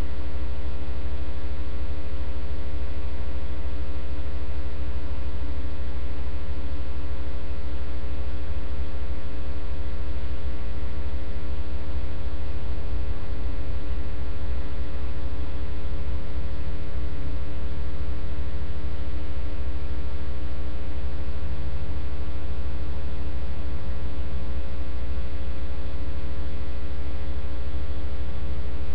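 Loud, steady electrical mains hum on the audio line, a low buzz with many evenly spaced overtones that never changes.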